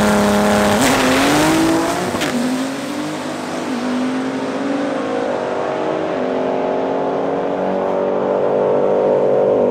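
Race car engine revved up hard and held at high revs, its pitch dipping and stepping up again several times.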